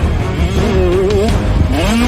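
Background music with a heavy bass and a wavering melodic line.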